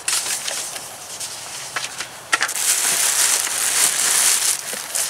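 Paper and cardboard packaging rustling and crinkling as it is handled. It gets louder with a sharp crackle about two and a half seconds in and keeps on for about two seconds.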